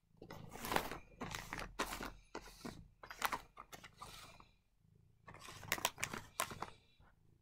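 Foil cat-treat packets (Felix Crispies and Goody Bag) crinkling and rustling as a hand handles and shifts them on a carpet, in two bouts with a short pause about five seconds in.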